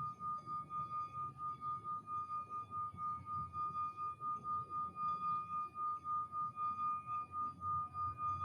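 Singing bowl sounding one steady sustained tone that pulses about four times a second, with a soft low hum beneath.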